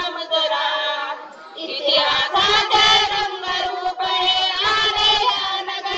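A small group of women singing a song together into one microphone, with a short breath pause about a second and a half in.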